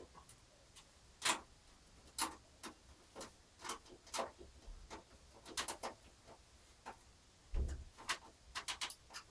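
Screwdriver driving a screw into the graphics card's bracket on a metal PC case: a series of irregular sharp clicks and ticks, bunching together near the end as the screw goes tight.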